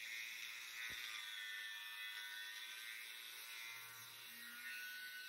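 Angle grinder with a cut-off disc cutting into a steel bar, a steady high whine of several tones that drift slightly in pitch.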